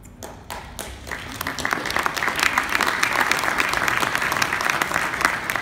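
Audience applauding, building up about a second in and fading near the end.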